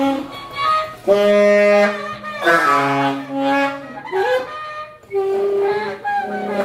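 Saxophone playing a few long held notes separated by short gaps, one of them bending upward in pitch partway through.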